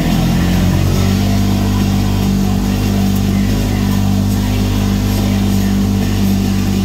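Side-by-side UTV's engine running steadily while driving up a dirt trail, heard from the vehicle's cab, at a steady pitch with a slight rise about a second in.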